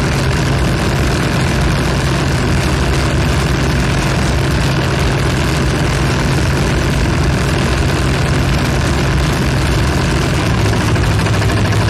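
A steady, dense mechanical drone with a strong low hum, even in loudness; about ten seconds in, the hum shifts slightly lower.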